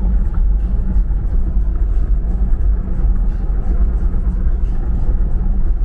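Car driving over a road of concrete slabs: a loud, steady low rumble of tyres and engine.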